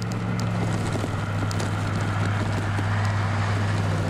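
Wind blowing across the microphone in a desert dust storm, over a steady low motor hum.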